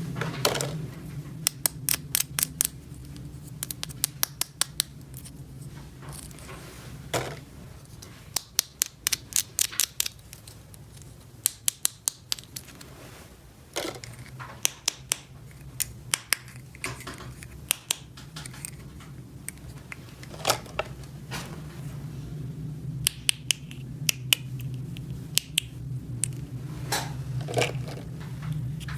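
Small plastic toy pieces being handled: runs of sharp clicks and taps, several a second, with pauses between, over a steady low hum.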